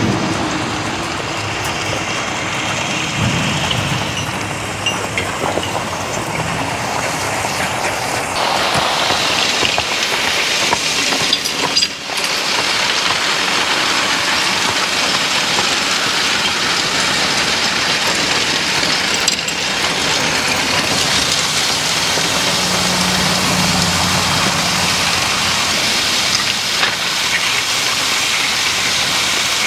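Steel spring-tooth harrow dragged through loose crusher-run gravel behind a draft-horse forecart: a steady gravelly scraping and rattling of the teeth through the stone, louder from about eight seconds in.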